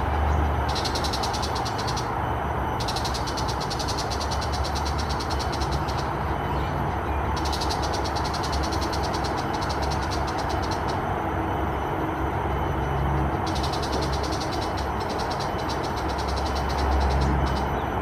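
Tiger shrike giving its harsh, rapid chattering call in four bursts of two to four seconds each, high-pitched and loud, over a steady low background rumble.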